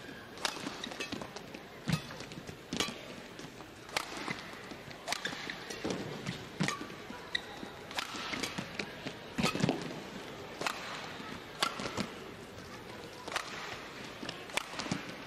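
A badminton rally: sharp racket strikes on the shuttlecock about once a second, with short squeaks of shoes on the court over a steady arena crowd hum.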